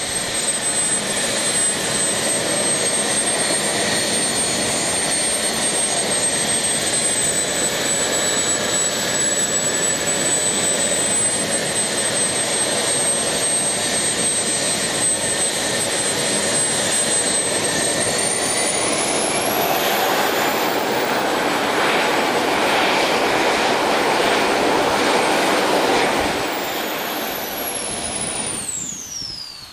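Model jet turbine running on a test stand with a steady high whine. About 19 seconds in it spools up: the whine rises and the rushing exhaust noise grows louder. Near the end the whine falls steeply and the sound dies away as the turbine spools down.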